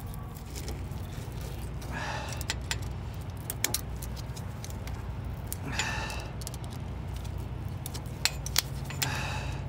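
Wire being handled and wrapped around a truck's exhaust pipe: scattered light metallic clicks and short scraping rustles. A steady low rumble runs in the background.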